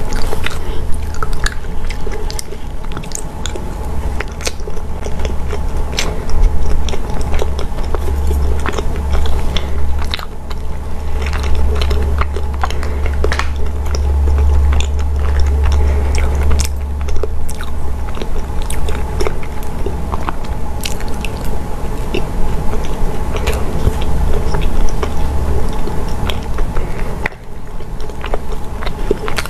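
Close-miked chewing of soft taro-paste and black glutinous rice cake, with many short clicks from a plastic spoon scraping the plastic cup, over a steady low hum.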